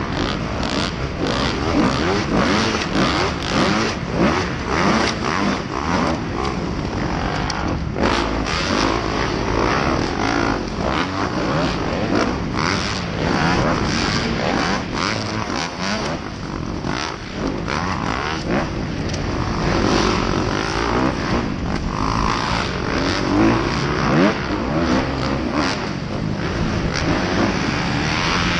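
2016 Kawasaki KX250F's four-stroke single-cylinder engine revving up and down hard as it races a dirt arenacross track, with other motocross bikes running close by. Frequent knocks and wind rush on the helmet camera's microphone cut through the engine note.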